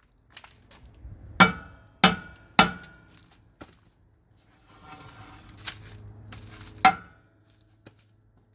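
Hammer blows on a semi truck brake drum stuck to the hub by corrosion, ringing metal: three sharp strikes about half a second apart, a lighter knock, then a stretch of rough scraping as the drum is worked loose, and one more hard strike near the end.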